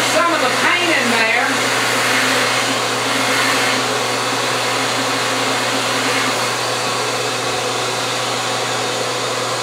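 Wet/dry shop vacuum running steadily, sucking air and red engine paint up through a Hemi cylinder head's exhaust port and header tube. Its pitch wavers briefly in the first second or so.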